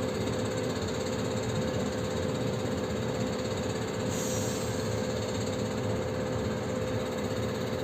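Heavy diesel machinery running steadily, an even engine noise with a held whine.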